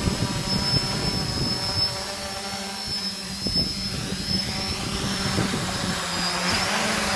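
TBS Discovery quadcopter's electric motors and propellers humming steadily as it descends and touches down on its own under the DJI Naza return-to-home failsafe after losing radio signal. The pitch of the hum shifts near the end as it settles on the ground.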